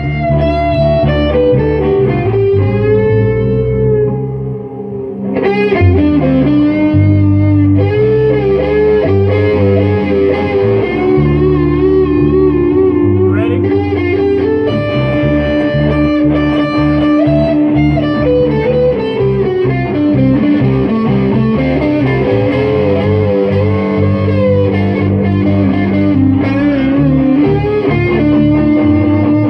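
Instrumental break of a song: an electric guitar plays a lead line with bent, wavering notes over a full band backing, dipping briefly about four seconds in before coming back in full.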